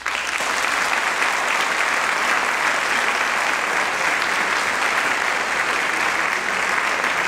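Audience applauding: dense, sustained clapping that starts suddenly and stays level throughout.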